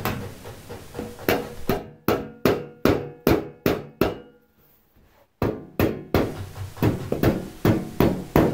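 Hammer tapping a tapered rigger's bar into the corners of a cut hole in a sheet-aluminium door skin, rounding over the edge. Sharp metallic taps come about two to three a second, with a pause of about a second partway through before the tapping resumes.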